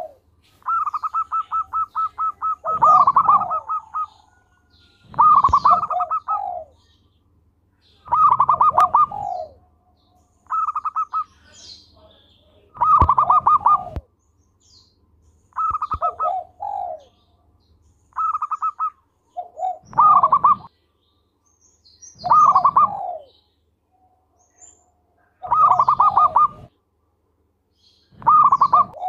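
Zebra dove (perkutut) singing steadily, repeating its song about every two to three seconds. Each phrase is a quick run of high staccato notes that drops into lower rolling coos.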